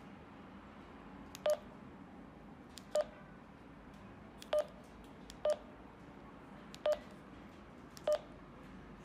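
Retevis RT3S handheld radio's keypad beeping as its keys are pressed: six short beeps of the same pitch, each starting with a click, spaced about one to one and a half seconds apart.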